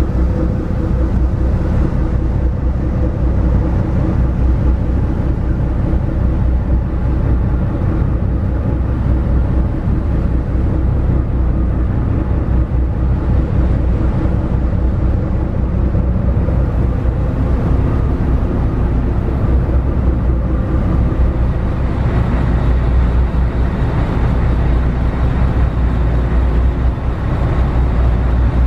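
Car ferry under way: the ship's engines drone steadily, a deep hum with a few steady tones over a constant rushing noise.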